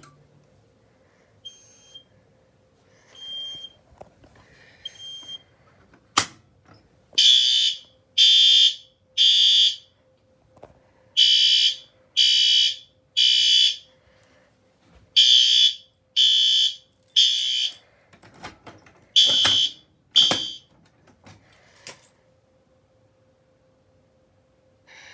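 A fire alarm sounding the temporal-three evacuation pattern: three loud, high-pitched beeps, a pause, then three more, repeated three times, stopping after two beeps of the fourth set. A few faint short chirps and a sharp click come before it starts.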